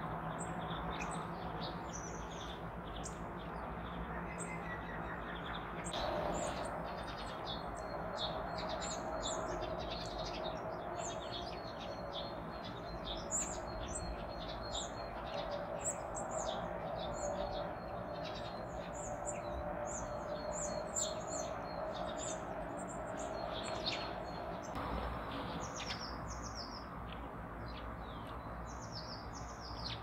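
Many small songbirds chirping and calling, short high notes coming thick and fast over a steady low background hum.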